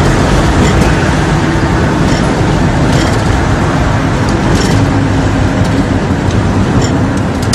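Steady engine hum and tyre road noise heard inside a moving car's cabin.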